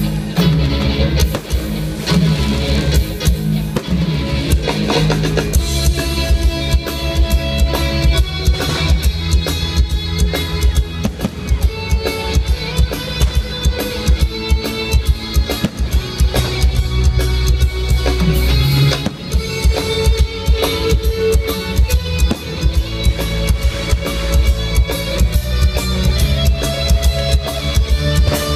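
Music with drums and guitar over a steady, fast beat.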